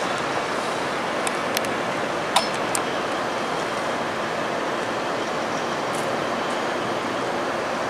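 Steady hiss of urban and rail-yard background noise, with a few sharp metallic clinks in the first three seconds and a fainter one about six seconds in.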